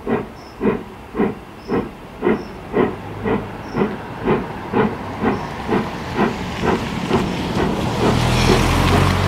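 Ivatt 2MT steam locomotive working a train, with its exhaust beating regularly at about two beats a second and quickening slightly. The sound grows louder and a low rumble builds. Near the end the beats blur into a continuous rush of steam and train noise.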